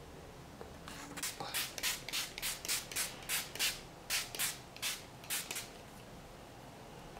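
Pump bottle of makeup setting spray spritzed at the face about fourteen times in quick succession, each spritz a short hiss, starting about a second in and stopping well before the end.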